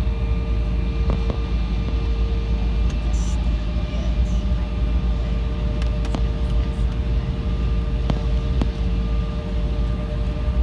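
Cabin noise inside an Embraer 175 regional jet: a steady low rumble with a steady whine from the engines and air system, holding level with no change in power. A few faint clicks.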